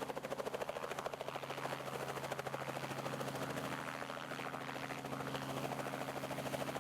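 Helicopter running: a rapid, even chop of the rotor blades over a steady engine hum.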